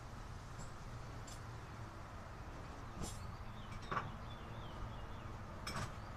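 A low steady hum with three short knocks or clicks, about three, four and six seconds in, the one near four seconds the loudest, and a few faint high chirps between them.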